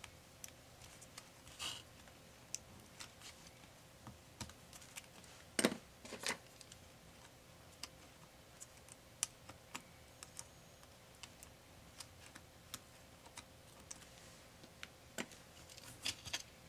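Scattered light clicks and taps of a small screwdriver and fingers on the plastic and metal internals of an opened MSI GS66 Stealth laptop, with a louder pair of clicks about six seconds in and another small cluster near the end.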